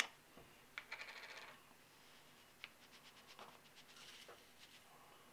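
Faint clicks and light rustling as the cap comes off a plastic bottle of smokeless gunpowder, then a soft trickle as powder is poured into a small container.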